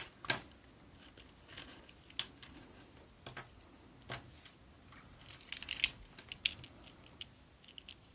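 Light handling noise of plastic wired earphones: scattered small clicks and crinkles, busiest about five and a half to six and a half seconds in.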